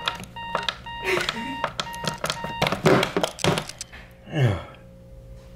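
Hotel bedside alarm clock beeping in quick repeated bursts, with clicks from its buttons being pressed, while it refuses to switch off. The beeping stops about two and a half seconds in, and a voice follows.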